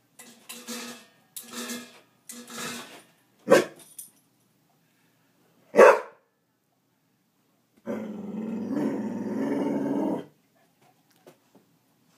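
A dog huffing a few times, barking sharply twice, then letting out a long growl of about two and a half seconds. It is frustrated at a tennis ball it cannot reach under its water-dish stand.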